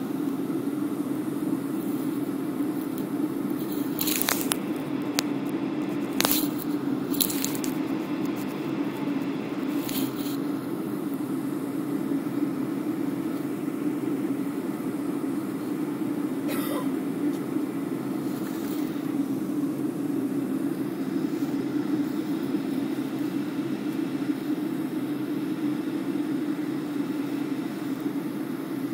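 Aircraft cabin noise in flight: a steady rush of engine and airflow with a strong low hum. Several brief scrapes or clicks come in the first ten seconds, and one more a little past halfway.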